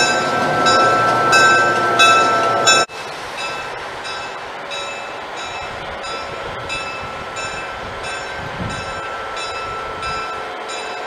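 A bell ringing at a steady pace, about one and a half strokes a second, over train noise. A louder, fuller sound fills the first three seconds and cuts off suddenly.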